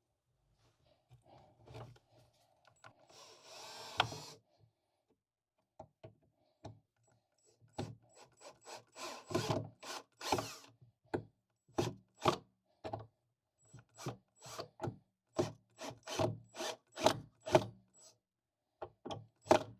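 Pocket-hole screw joint being driven and tightened in a wooden desk frame. A drill runs briefly about three seconds in. From about eight seconds on comes a long string of short, sharp clicks and knocks on wood, about two a second.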